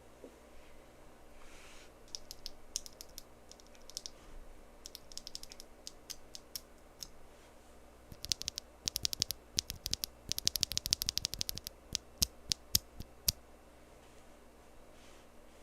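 Mechanical keyboard being typed on: SW x Gateron Deeping linear switches in a Frog Mini with an aluminium plate and full foam. Scattered lighter keystrokes start about two seconds in, then a fast, louder run of typing from about eight seconds in stops a little past thirteen seconds.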